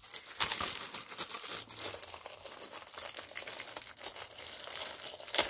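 Clear plastic sleeve crinkling steadily as it is handled and pulled open to get a wallet out, with a louder crackle just before the end.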